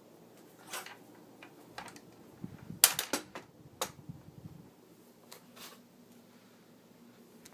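Objects being handled: a scatter of sharp clicks and knocks, loudest in a quick cluster about three seconds in.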